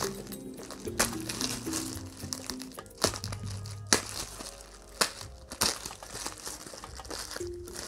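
Bubble wrap crinkling and rustling as it is slit and pulled open with a utility knife, with sharp crackles about a second in and again around three, four and five seconds. Soft background music plays underneath.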